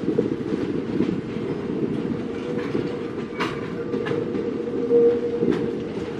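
Container freight train rolling past: a steady rumble of wagons with the wheels clacking over rail joints every so often.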